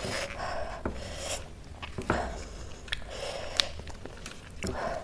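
A lettuce leaf is rubbed and wiped across a plate to mop up sauce, making soft repeated rubbing strokes with a few small sharp clicks.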